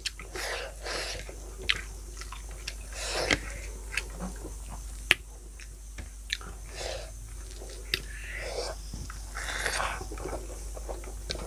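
A person chewing and eating close to the microphone: soft wet mouth sounds with many short sharp clicks scattered irregularly throughout.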